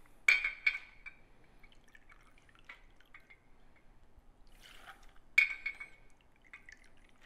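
Vodka poured from a glass bottle into a small shot glass, measuring out shots: a ringing clink of glass on glass just after the start and another about five seconds in, with faint trickling of liquid between.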